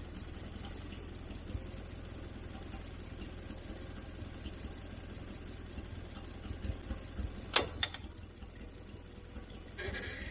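Wood-Mizer portable band sawmill's engine running steadily with a low hum. Two sharp knocks come about seven and a half seconds in, and a higher whine starts near the end.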